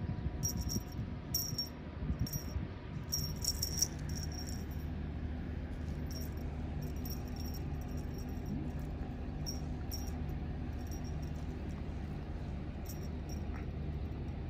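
A steady low mechanical hum, with short high-pitched chirps or jingles coming and going.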